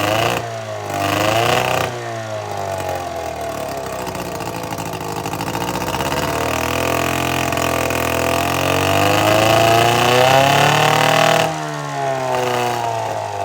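1950s Firestone 5 hp outboard motor running, its engine speed slowly rising and falling, with a drop in level a little before the end.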